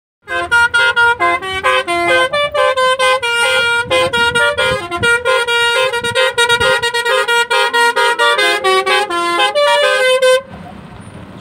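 Telolet horn, a tour bus's multi-trumpet musical air horn, playing a fast melody of short notes, several pitches at once. It stops suddenly near the end.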